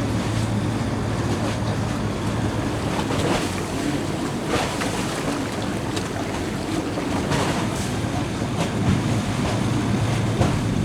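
Sailing catamaran under engine: a steady low engine hum, with water rushing along the hulls and wind buffeting the microphone.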